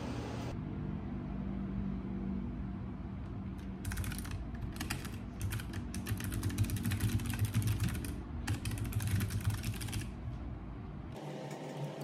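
Fingers typing on a compact low-profile computer keyboard: rapid runs of key clicks with short pauses, starting about four seconds in and stopping about ten seconds in, over a low steady hum.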